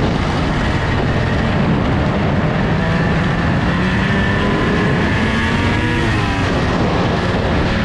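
2000 Arctic Cat ZR600 snowmobile's 600cc two-stroke twin running under way through snow, its pitch rising and falling with the throttle around the middle, over a steady rush of wind and track noise.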